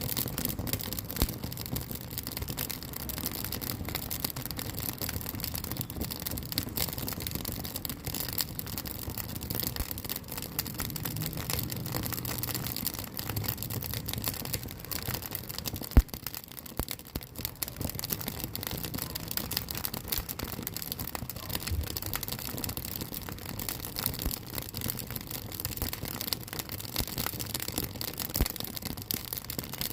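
Wood fire crackling in the firebox of a wood-burning cook stove: a steady hiss with many small irregular pops and one sharper, louder pop about halfway through.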